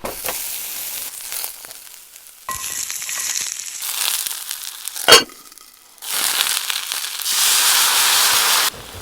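Food sizzling in a series of short cuts, the hiss changing in strength from cut to cut, with one sharp metallic clank about five seconds in.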